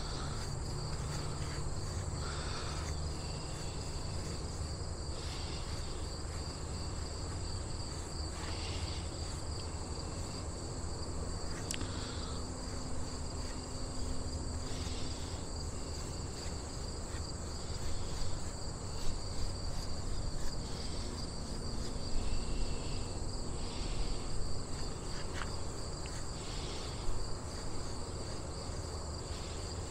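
Steady high-pitched insect-like trilling at two pitches over a low background hum, with a few faint soft rustles in the second half.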